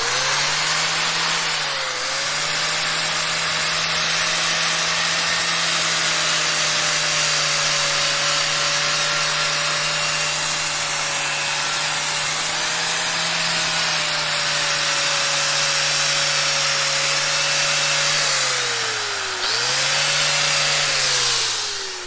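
Angle grinder switched on and spinning up to full speed, then running with a steady high whine over a dense hiss. Its pitch dips briefly about two seconds in and again near the end. It is then switched off and winds down in a falling tone.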